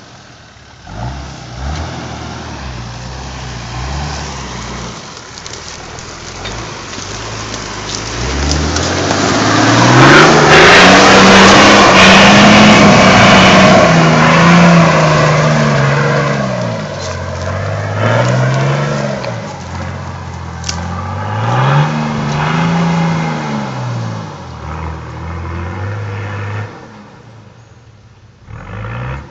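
Four-wheel-drive's engine revving hard as it pushes through a muddy bog hole: one long high rev about ten seconds in, then three or four shorter revs rising and falling before it fades near the end.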